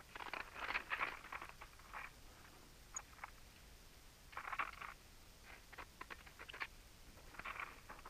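Northern cardinal cracking and crunching sunflower seeds in its bill right by the microphone: clusters of small crisp cracks that come and go every second or two.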